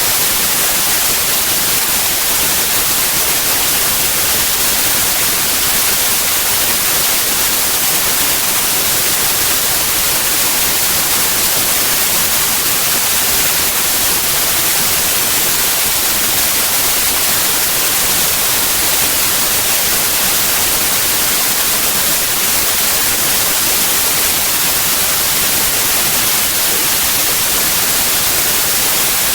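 Synthetic white noise: a steady, even hiss with no change or events, brighter in the treble than the bass.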